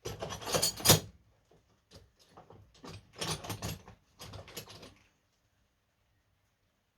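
Metal tools and parts clattering and rattling as they are handled, in several bursts, the loudest in the first second, stopping about five seconds in.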